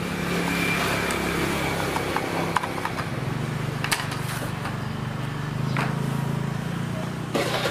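A few sharp plastic clicks and knocks as the top air-filter cover is taken off a Shindaiwa 450 chainsaw, over a steady low engine hum from a machine that is not the saw.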